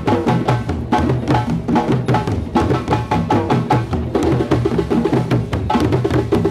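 A drum circle of djembes and other hand drums played together in a fast, steady rhythm of many overlapping strokes.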